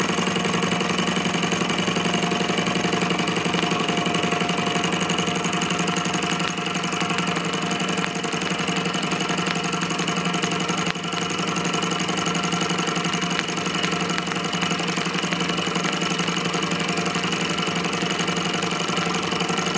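Small model hot-air Stirling engine running steadily on its burner flame: a fast, even mechanical clatter from its piston, displacer and flywheel linkage.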